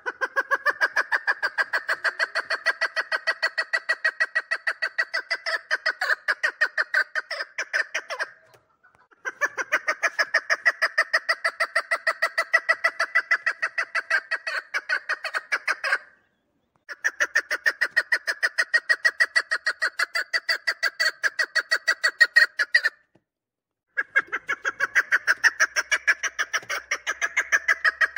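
Three-year-old chukar partridge calling: fast, even runs of clucking notes, about seven or eight a second, each run lasting around seven seconds. Three brief pauses break the runs before the calling starts again.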